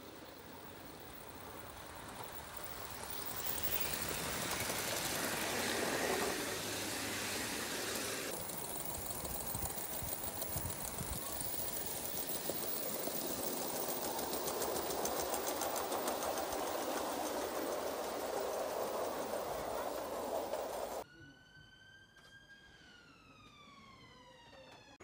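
Gauge 1 Aster Rebuilt Merchant Navy live-steam locomotive running past: a steady hiss of steam and running gear, growing louder over the first few seconds as it nears, with a quick regular beat through the middle. About four seconds before the end the sound drops away suddenly, and a high pitched tone holds and then slides down in pitch.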